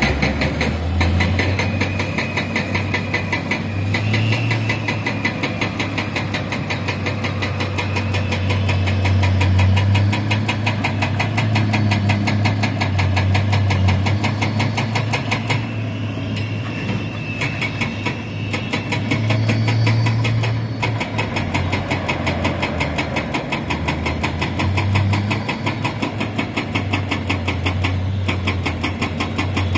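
Heavy diesel engine running close by, its low drone swelling and easing every few seconds as the load comes and goes, with a faint high whine now and then.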